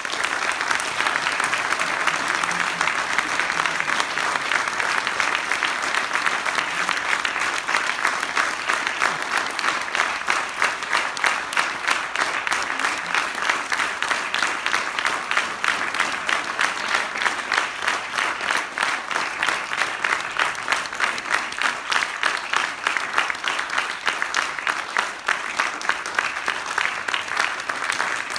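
Audience applauding loudly, starting suddenly as the music stops; in the second half the clapping falls into a more even, beat-like rhythm.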